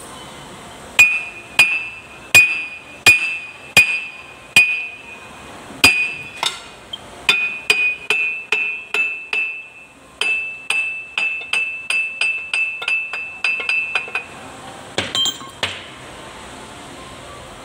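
Hammer blows on a Kubota tractor's steel rear axle hub, metal on metal, each strike ringing brightly. About six slow, evenly spaced blows come first, then after a short pause a quicker run of lighter strikes at about three a second, and two last hits near the end.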